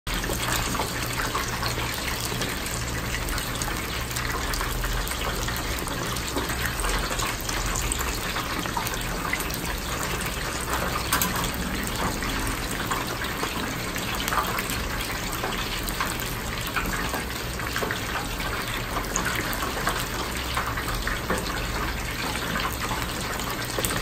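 Whole chickens deep-frying in a vat of hot oil: a steady, dense sizzle full of constant small crackling pops, over a low steady hum.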